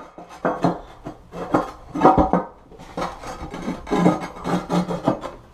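Irregular scraping, rubbing and knocking of toilet parts being worked into place by hand.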